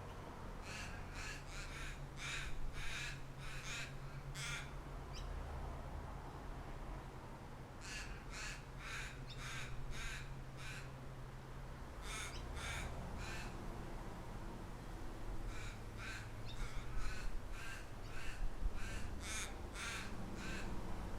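A bird calling outdoors in four runs of short repeated calls, about two a second. A steady low rumble of breeze runs underneath.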